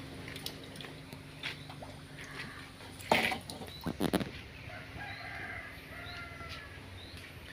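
Chickens clucking faintly, with two short loud noises about three and four seconds in.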